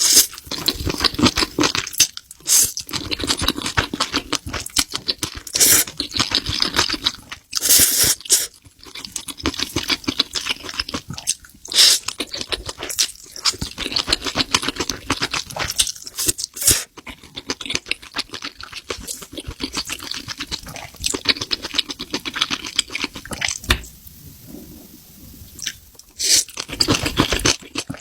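Close-up eating sounds of spicy seafood being chewed, with wet smacking and crunching and now and then a sharp crack, as of shells being bitten or broken.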